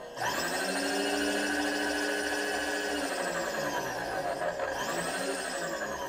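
Small electric motor driving the milling machine table, likely its power feed, whining up to speed, running steadily, then winding down in pitch after about three seconds. It starts again briefly about five seconds in and winds down once more.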